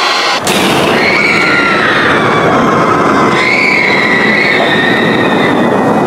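Horror sound effect from a Halloween animatronic: a loud, steady rushing roar starting about half a second in, with high wavering whining tones drifting over it.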